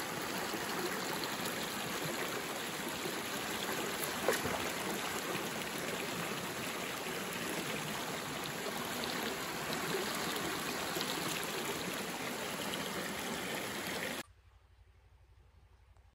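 Shallow stream rushing over a low stone weir and around rocks: a steady, even rush of water, with one brief knock about four seconds in. The water sound cuts off suddenly near the end.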